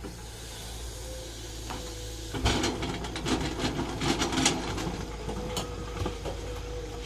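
Tata Hitachi crawler excavator's engine running steadily. From about two and a half seconds in, a couple of seconds of rock crunching and clattering as the bucket scrapes into broken rock, then it settles back to the engine.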